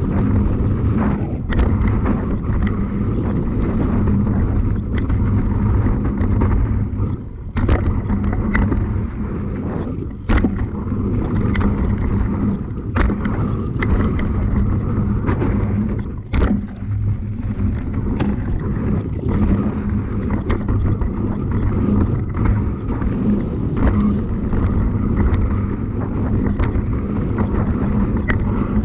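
A motor vehicle's engine running steadily, with frequent sharp clicks and knocks over it.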